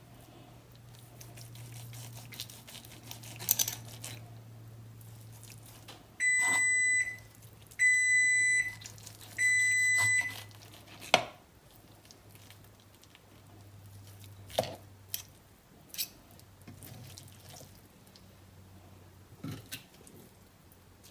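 Three electronic beeps, each just under a second long, close together about six to ten seconds in, amid occasional clicks and scrapes of a carving knife and fork on a cutting board as roast chicken is carved. A low steady hum runs underneath.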